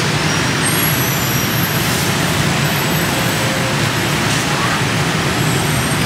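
Steady road-vehicle noise: an engine and tyre rumble that stays even throughout, with no single event standing out.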